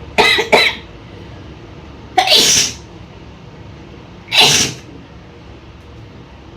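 A woman sneezing four times: a quick double sneeze right at the start, then single sneezes about two seconds in and about four and a half seconds in, provoked by tickling the nose with cotton.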